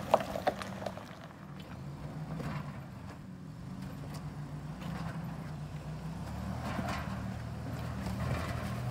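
Turbocharged Toyota 4Runner's 3.4-litre 5VZ-FE V6 running steadily at low revs as the truck crawls up a rock pile. There are a couple of sharp knocks right at the start.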